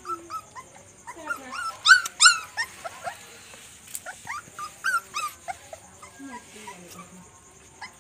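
Several puppies whining and yelping in short, high squeals that fall in pitch, squabbling with one another; the loudest pair comes about two seconds in. A steady high-pitched whine runs underneath.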